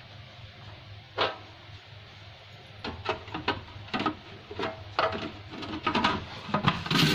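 Plastic lid of a food processor being handled and fitted onto its bowl: a sharp clack about a second in, then a run of knocks and clicks. Right at the end the food processor's motor switches on and runs steadily.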